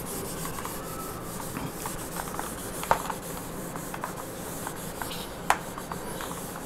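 Felt whiteboard eraser rubbing back and forth across a whiteboard, wiping it clean, with two light knocks.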